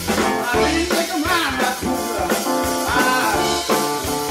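Live blues band playing a passage of the song between sung lines, with electric guitars, drum kit and keyboard.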